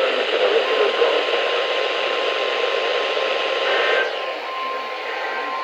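Radio static hiss with a steady single high tone coming through, faint at first and stronger after the hiss drops about four seconds in: the NOAA Weather Radio warning alarm tone (1050 Hz) received on a noisy signal.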